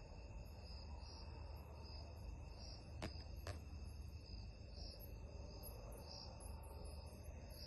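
Faint night chorus of crickets and other insects: a steady high trill with one call swelling in even pulses about once or twice a second, over a low rumble. Two sharp clicks come about three seconds in.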